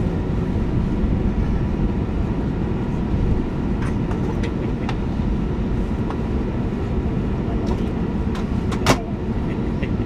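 Airbus A320neo cabin noise while taxiing: a steady low rumble of the engines and the plane rolling over the taxiway. A few light clicks, and one sharp click about nine seconds in.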